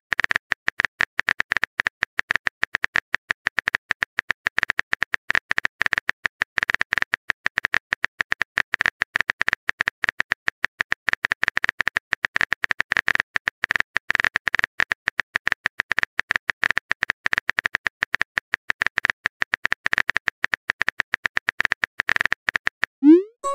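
Rapid, steady keyboard typing clicks, several a second, from a texting-story app's typing sound effect as a message is typed out. Near the end a short rising swoop as the message is sent.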